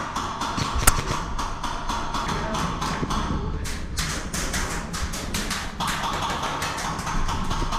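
Background music with a quick tapping percussion beat, with one sharp click about a second in.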